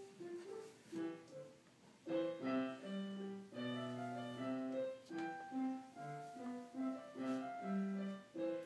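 Piano music: a melody of separate notes over chords.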